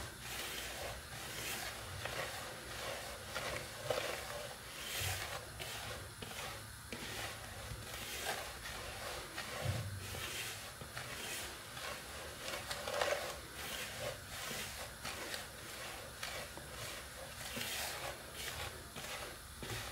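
Hands rubbing and tossing damp coarse semolina in a wooden bowl: a faint, irregular gritty rustle of grains against each other and the wood. The semolina is being mixed with sugar and sprinkled water, worked by hand rather than kneaded.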